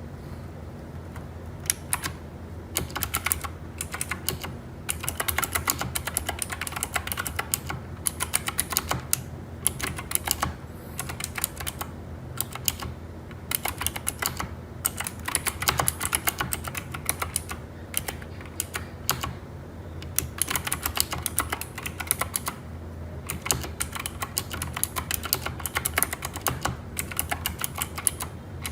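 Typing on a Keychron K4 v2 mechanical keyboard with clicky Gateron Blue switches and silicone-filled keycaps: fast runs of key clicks broken by brief pauses, starting about a second and a half in.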